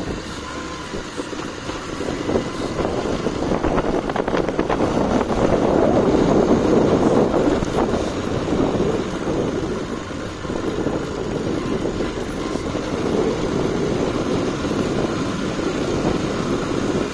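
A vehicle driving along a street: its engine and road noise make a steady, unpitched rumble that swells about a third of the way in, eases off, then holds steady.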